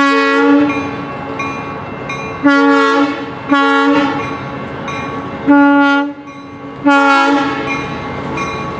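Locomotive air horn sounding a series of short blasts, five in all, each a steady multi-note chord cut off sharply, over the rumble of the approaching train.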